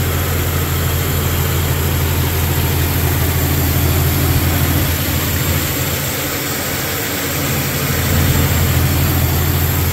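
1999 Jeep Cherokee XJ's 4.0-litre straight-six idling steadily, running smoothly with its newly fitted harmonic balancer pulley and serpentine belt turning.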